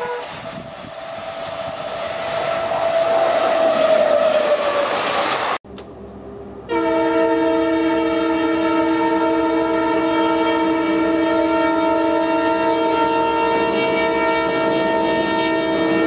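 An electric passenger locomotive approaches with wheel and rail noise growing louder. There is an abrupt change a little over five seconds in. About a second later a diesel freight locomotive sounds a long, steady multi-tone air horn for about ten seconds.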